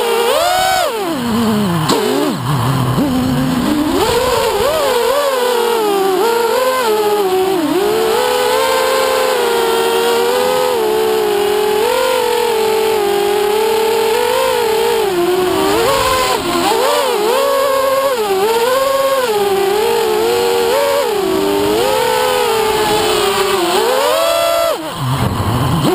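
FPV quadcopter's four RCX 2208 2300kv brushless motors spinning 6-inch props, heard from the camera on board. It makes a buzzing whine that rises and falls in pitch with the throttle, and the pitch falls away sharply about a second in and again near the end.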